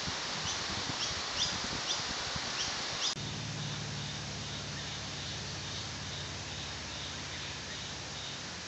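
Forest ambience with short rising chirps from a small animal, repeating about twice a second over a steady hiss. About three seconds in it cuts off abruptly and gives way to a steady low hum with faint high chirping.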